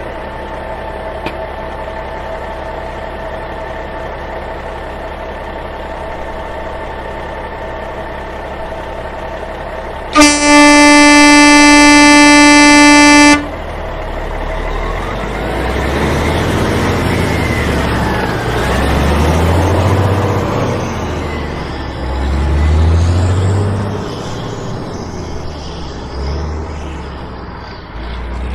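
Truck engine idling steadily, then a loud truck horn held for about three seconds, followed by the engine revving up and down again and again.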